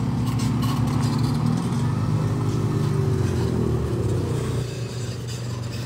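Vehicles passing close on a street: a pickup truck's engine and tyres going by, its engine note falling slightly as it pulls away, then quieter traffic from about four and a half seconds in.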